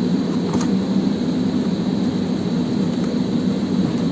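Steady drone of running machinery, an even hum with a rushing noise over it, with one small click about half a second in.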